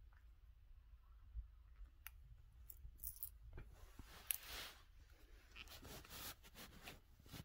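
Near silence with faint, scattered clicks and short rustles, and one sharper click about four seconds in.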